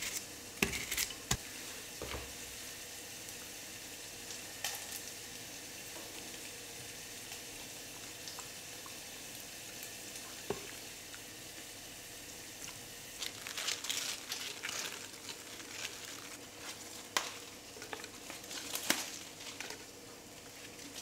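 Close-up food preparation: a knife cutting cucumber and a soft cooked pepper, with pieces dropping into a glass blender jar, heard as scattered clicks over a steady faint hiss. From about halfway through, the handling grows busier, with crackly rustling as the pepper and fresh basil leaves are worked over the jar.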